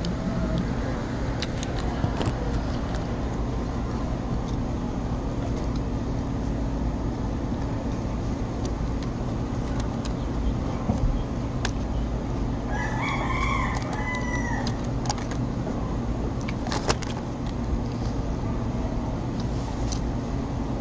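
A rooster crows once, a little past the middle, one call of about two seconds. Under it runs a steady low rumble, with scattered clicks.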